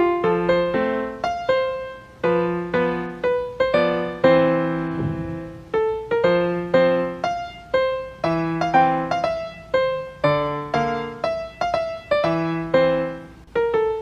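Background piano music: a gentle melody over chords, with notes struck and left to ring.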